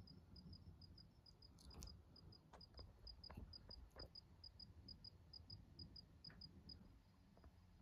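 Faint insect chirping, a quick even series of short high chirps about four a second that stops near the end, with a few faint clicks and a low rumble beneath.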